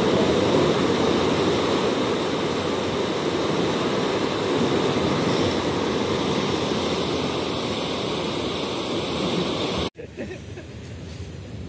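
Turbulent water rushing and churning inside a concrete dam shaft, a loud steady rush. It cuts off suddenly about ten seconds in, leaving a much quieter outdoor background.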